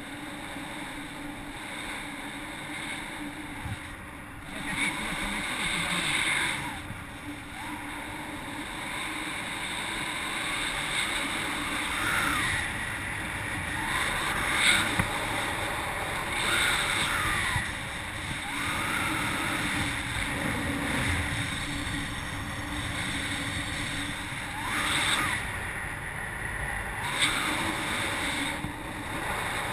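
Airflow rushing over a GoPro's microphone as the paraglider flies: a steady rush of wind noise that swells louder several times with gusts.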